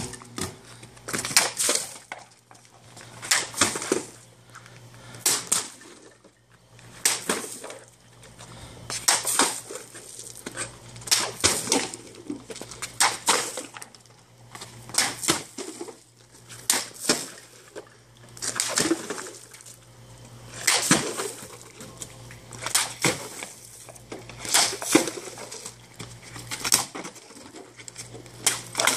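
A machete being swung hard over and over, a sharp swish or strike about every one to two seconds.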